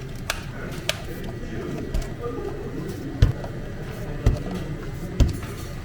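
Handling sounds of cafe drink preparation over a steady low background hum: a few light clicks, then four dull thumps about a second apart.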